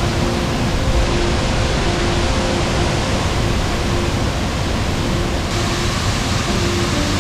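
Steady, loud rush of the Sgwd yr Eira waterfall: a large volume of water falling and crashing onto the pool below.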